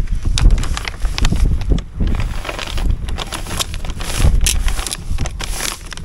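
Polythene damp-proof membrane crackling and rustling in irregular bursts as it is knelt on, smoothed by hand and taped at the joints, over the low rumble of wind on the microphone.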